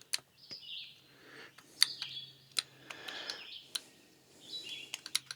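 Scattered sharp clicks and taps from test leads and the removed EGR valve being handled while 12 volts is applied to its actuator motor. Short high chirp-like sounds come in between.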